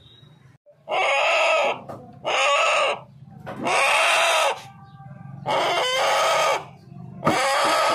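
Country rooster giving a series of loud, harsh calls: five in a row, each under a second long, about one every one and a half seconds.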